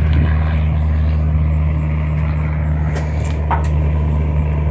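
Hose-fed gas soldering iron's burner giving a steady low roar while solder is melted onto a sheet-metal flashing seam, with a few light metallic taps about three seconds in.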